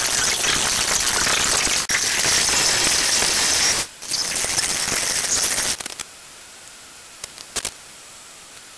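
Loud, steady static-like hiss with no tone or rhythm. It cuts out briefly twice, then drops to a much quieter hiss about six seconds in, with a couple of faint clicks near the end.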